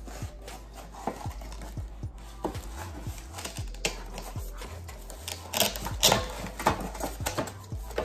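Pots and pans of a cookware set knocking and clattering as they are taken out of their box and packaging, a string of scattered clicks and knocks that grows busier and louder about two-thirds of the way through.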